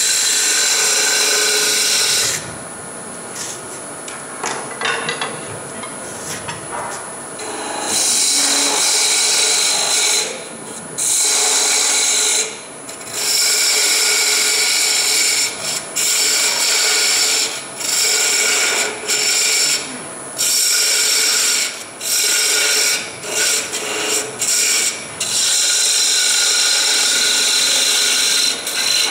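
Captive ring tool cutting into wood spinning on a lathe, in repeated hissing cuts of one to three seconds with short pauses between them, over the lathe's faint steady whine. The cuts are quieter for the first few seconds and come thick and fast after that.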